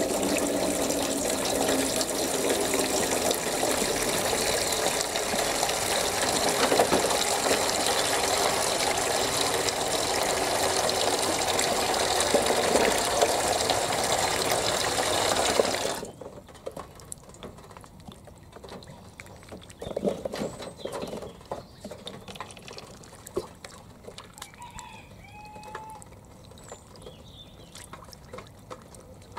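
Water running steadily into a shallow dish for about sixteen seconds, then cutting off abruptly. After that come quieter light splashes and dabbling as Indian Runner ducklings play in the shallow water, with a few short duckling peeps.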